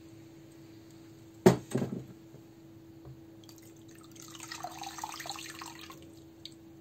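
A sharp knock about a second and a half in, with a few lighter knocks after it, as a wire wheel brush is dropped into a plastic tub of cleaning liquid. Then liquid splashes and sloshes for about two seconds as the brake master cylinder's plastic fluid reservoir is swished through the liquid and lifted out. A faint steady hum runs underneath.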